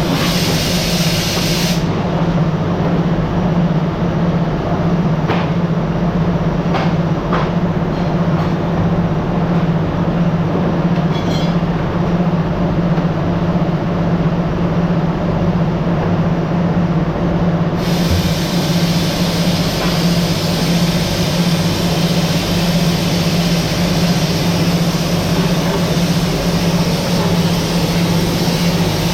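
Steady drone of factory machinery, with a strong constant low hum and a few faint clicks.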